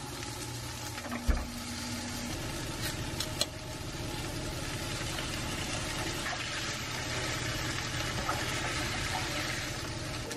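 Kimchi, rice and canned tuna sizzling steadily in a frying pan while being stirred with wooden utensils, with a single knock about a second in.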